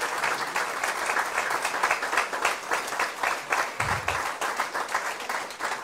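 Audience applauding: a dense, steady stream of many people clapping.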